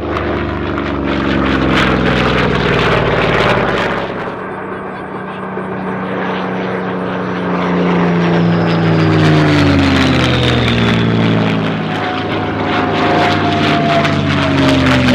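Propeller-driven World War II fighters, an F4U Corsair, a Spitfire and a P-51 Mustang, flying past in turn, their piston engines droning loudly. The pitch slides down as each aircraft passes. The sound eases about four seconds in and swells again.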